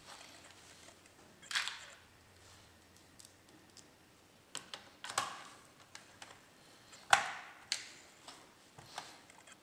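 Scattered sharp clicks and taps with brief rustles, about half a dozen, from hands handling a laptop's plastic bottom case, a small screwdriver and screws on a towel.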